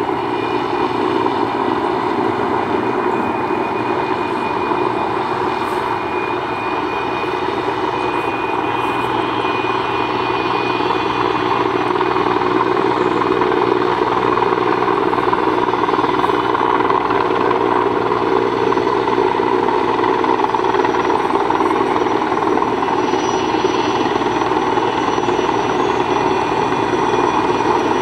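Sikorsky S-64 Skycrane heavy-lift helicopter hovering with a steel tower section slung beneath it: a steady rotor and turbine drone with a high whine, a little louder from about halfway through.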